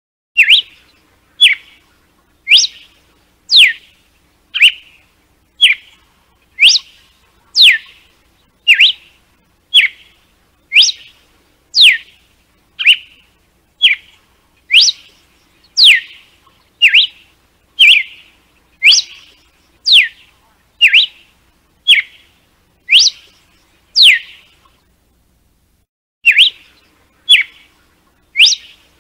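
Red-cowled cardinal (galo de campina) singing its 'açoite' (whip) song: short, sharp whistled notes about one a second, each a quick sweep in pitch, many falling steeply. There is a pause of about a second and a half near the end.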